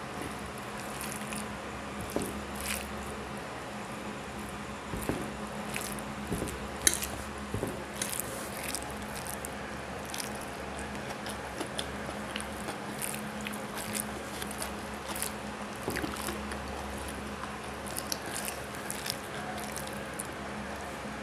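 Close-miked eating by hand: fingers squishing and mixing boiled vegetables into rice on a plate, and chewing with small wet mouth clicks, heard as many irregular little clicks over a steady low hum.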